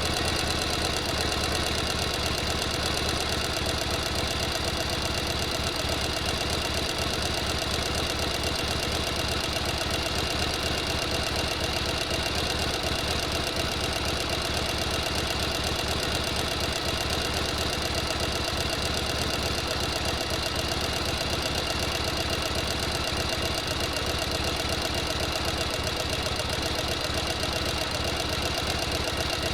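Sewing machine running steadily at speed, its stitching mechanism clattering in a fast, even rhythm.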